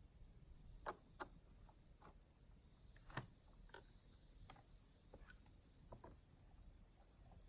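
Faint, irregular clicks and light taps over a steady high-pitched hiss, with no engine running.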